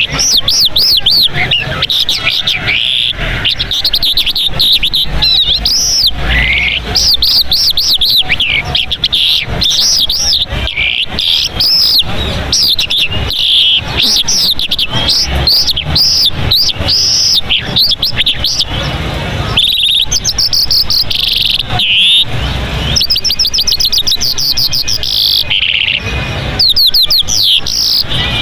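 A Mashadi Jal songbird singing a long, fast twittering song: strings of quick rising and falling notes and trills in phrases broken by short pauses.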